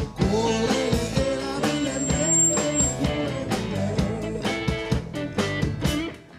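Live rock band playing: electric guitars over bass and a drum kit. The music drops away briefly near the end, then comes back in.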